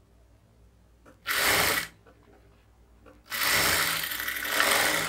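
Jack industrial sewing machine running in two bursts, a short one just over a second in and a longer one from about three seconds, stitching a second line of stitches around a sleeve seam.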